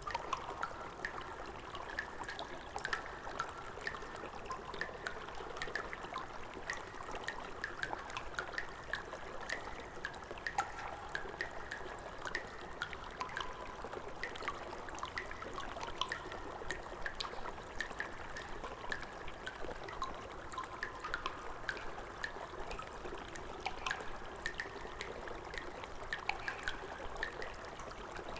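Water in a sewer trickling steadily, with many small drips and splashes throughout.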